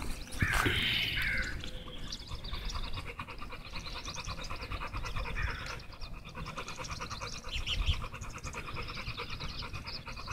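American bully dog panting quickly and steadily with its mouth open.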